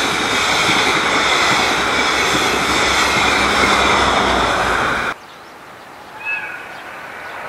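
Train of 24-series blue-train sleeper coaches rolling past on jointed track: a loud, steady rumble and hiss of the wheels with ringing tones above it and a pulsing low beat. It cuts off suddenly about five seconds in to a much quieter background, with one short high chirp a second later.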